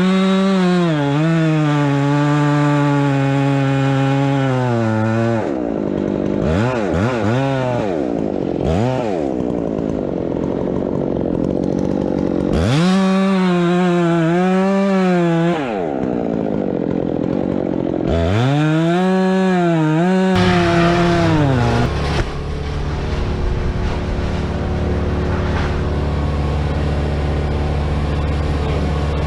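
Chainsaw revved up and held at high revs in several spells, with short quick blips of the throttle between them. About two-thirds of the way in, a steadier, lower-pitched engine drone takes over.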